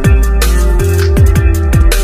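Electronic drum and bass music with a fast, steady beat of falling kick drums and hi-hats over sustained synth tones.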